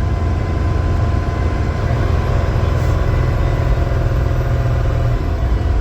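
Volvo semi truck's diesel engine running under its engine brake on a downhill grade, a steady low drone that eases slightly near the end.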